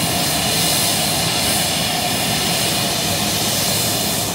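Jet aircraft engine running on the apron: a steady rush of noise with thin, high, steady whining tones over it.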